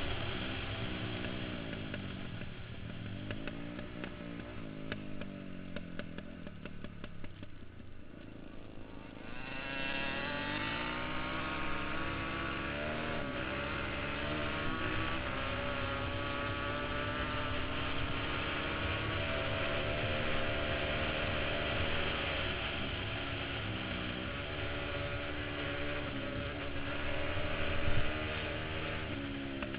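KTM supermoto engine heard from on the bike, revving up and dropping back through the gears. It runs quieter for the first several seconds, then from about ten seconds in pulls harder, its pitch climbing and falling with each shift. One sharp thump near the end.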